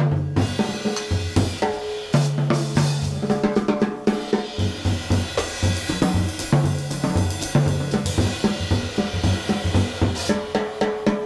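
Jazz drum kit played with sticks in a bebop tune: dense snare strokes, bass drum and cymbals, over held low notes.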